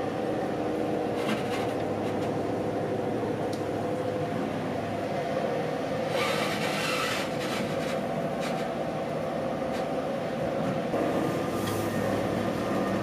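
Deutsche Bahn Intercity carriage running along the line, heard from inside the passenger compartment: a steady rumble of wheels on rail with a constant hum. About six seconds in, a louder rush of hiss lasts roughly a second.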